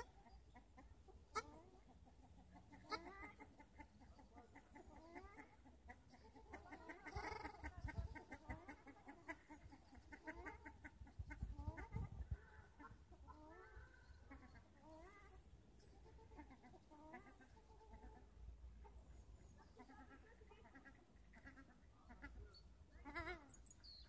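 Ruddy shelducks calling: faint, repeated nasal honks.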